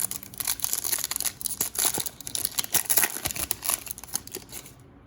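Foil wrapper of a trading-card pack crinkling and being torn open by hand, a dense crackle that stops shortly before the end.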